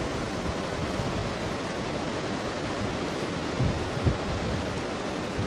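Steady outdoor rushing noise, with two low thumps close together about three and a half to four seconds in.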